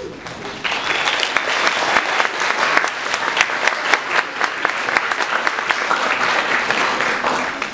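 Audience applauding, the clapping starting about a second in.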